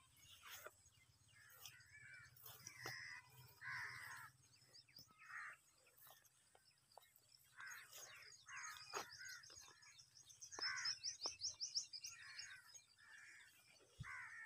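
Crows cawing, faint, a dozen or so separate caws, with small birds chirping and a fast high trill about ten seconds in.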